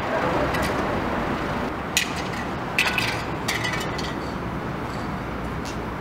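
Steady street traffic noise, with a few short sharp clicks and clinks about two to four seconds in.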